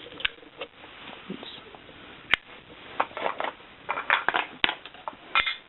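Zippo lighter being handled: a sharp metallic click a little over two seconds in, then a quick run of clicks and short rasping scrapes from the hinged lid and the flint wheel.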